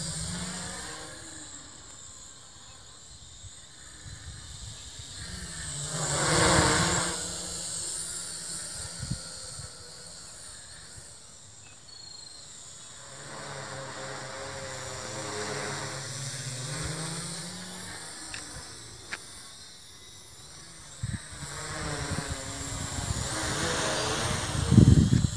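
Small quadcopter drone flying overhead: a steady hissing propeller buzz that swells about six seconds in and again near the end as it passes.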